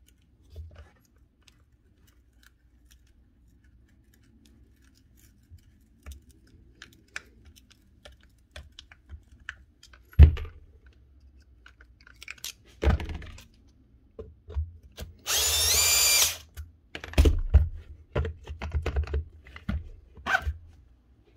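A Milwaukee M18 brushless angle grinder being taken apart by hand: faint screwdriver clicks, then two sharp knocks about halfway as the tool is struck, a scraping squeak lasting about a second, and a quick run of knocks near the end as the gear housing is worked off the motor to reach its failed bottom rotor bearing.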